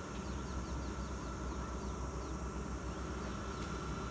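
Low, steady rumble of a distant diesel freight train climbing along the hillside, with a quick run of short, falling high chirps from a bird over it that stops shortly before the end.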